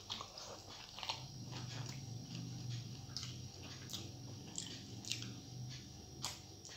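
Close-mouthed eating sounds: wet chewing of soft rice and dal, with many short lip smacks and mouth clicks. A low hum sits under the chewing for a few seconds from about a second in.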